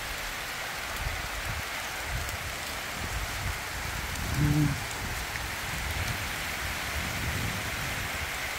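Steady rain falling on a maize field and mango trees, an even hiss. About halfway through a person gives one short vocal sound.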